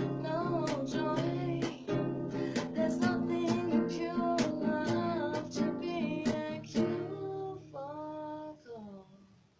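Acoustic guitar strummed in steady chords through the song's closing instrumental bars. The strumming thins out after about seven seconds to a few last ringing notes that fade away.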